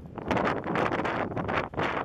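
Wind buffeting the camera's microphone in irregular gusts.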